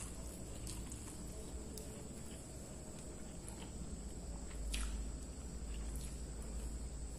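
Close-miked hand-eating sounds: fingers working and squeezing rice on a paper wrapping, with chewing and a few short, soft clicks and smacks. A faint steady high-pitched whine runs underneath.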